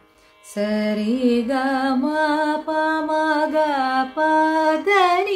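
A woman singing the ascending scale (arohanam) of raga Yamuna Kalyani in Carnatic solfa syllables (sa ri ga ma pa…), starting about half a second in. Each note is held and sung a step apart, and the line climbs in a zigzag, as the raga's vakra scale requires.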